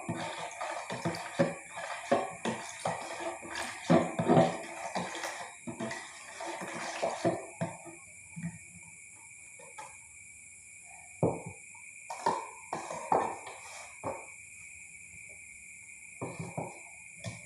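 Spoon stirring coconut water with lemon and salt: liquid swishing and the spoon knocking against the container, busy for the first several seconds, then only a few scattered knocks.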